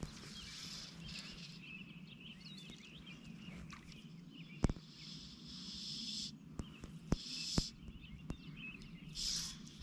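Quiet outdoor ambience: a steady high hiss with faint, fluttering chirps and a few sharp clicks, the loudest about halfway through.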